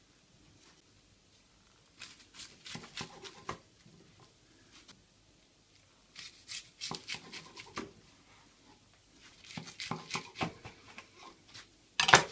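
Sushi knife sawing through a nori-wrapped roll on a plastic cutting board: three bouts of crisp crunching and clicks as the blade cuts the dry seaweed. A single louder knock near the end.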